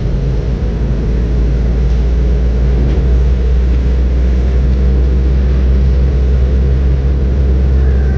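Engine and tyre noise of a moving car heard from inside the cabin, a steady low hum that holds evenly throughout.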